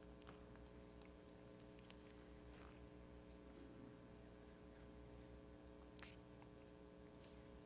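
Near silence: room tone with a steady low electrical hum and a few faint clicks, the clearest about six seconds in.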